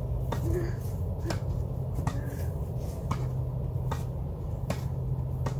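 Tennis ball volleyed back and forth between two rackets: a sharp pock of ball on strings a little under once a second, about seven hits in a steady, unbroken rally.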